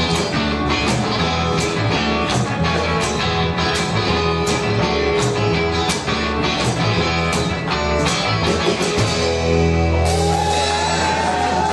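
Live band playing an instrumental passage of a rock-and-roll song, with guitar over a bass line and a steady beat. A higher, wavering melody line comes in near the end.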